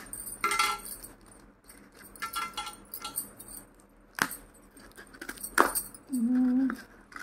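Scissors cutting through packing tape on a small cardboard parcel, with a few sharp snips, and bangles on the cutting hand's wrist clinking and jingling briefly.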